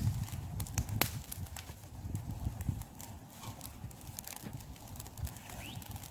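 Campfire burning with irregular sharp crackles and pops, over a low rumble.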